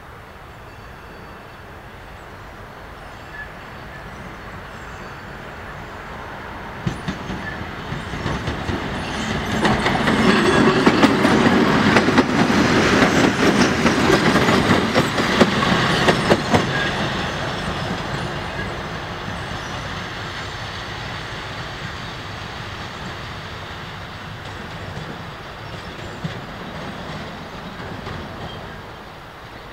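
TEM18DM shunting diesel locomotive passing by: its diesel engine grows louder as it approaches and is loudest about halfway through, with wheels clacking over rail joints as it goes past. It then fades as it pulls away.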